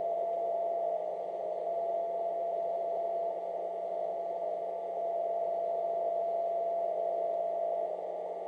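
Ham radio receiver audio: a steady whistling tone from a single-frequency interfering carrier (a "birdie") over receiver band hiss, as a phase-shifting noise eliminator is adjusted to null it. The level dips slightly now and then.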